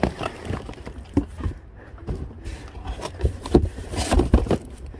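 Irregular rustling, crinkling and light knocks as food packets and plastic containers are handled and shifted about in a cardboard box, with a few sharper knocks in the second half.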